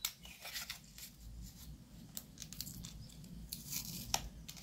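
Plastic blister pack crinkling and its card backing tearing as a new coin-cell battery is peeled out of its packaging: a faint run of small crackles and clicks, with sharper ones at the start and about four seconds in.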